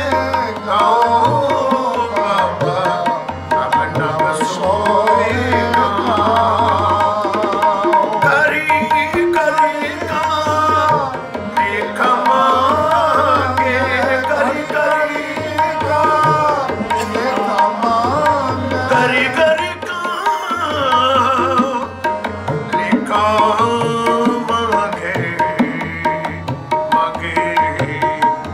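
Gurbani kirtan: tabla played in a steady rhythm under harmonium chords, with men singing.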